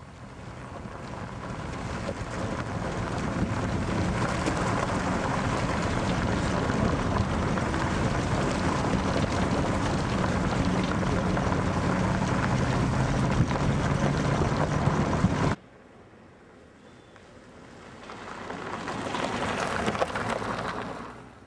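Steady road and wind noise of a moving vehicle with a low engine hum, building over the first few seconds and cutting off abruptly about fifteen seconds in. Then a car passes close by, its noise swelling and fading away.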